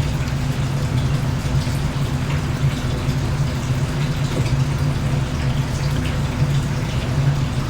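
Jerk sauce being poured over chicken pieces and mixed in by hand, with wet sloshing and squishing, over a steady low hum.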